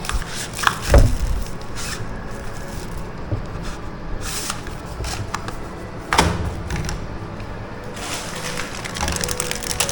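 Handling noise from unboxing a product: a few sharp knocks, the loudest about a second in and another about six seconds in, between quieter rustling of packaging.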